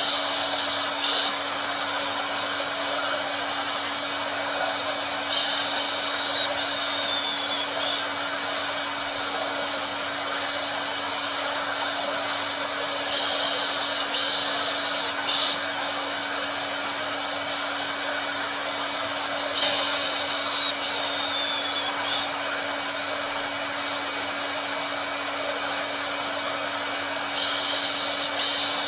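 Hair dryer running steadily, a constant blowing hiss with a low motor hum. A brighter, higher hiss comes in for about two seconds roughly every seven seconds.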